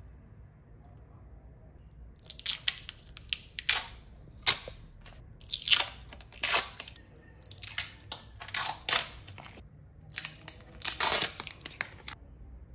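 Adhesive tape being peeled and crinkled by hand: clusters of sharp crackling bursts that start about two seconds in and stop just before the end.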